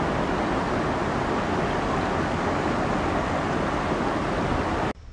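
Rushing water of a shallow stream riffle, a steady loud rush that cuts off suddenly near the end.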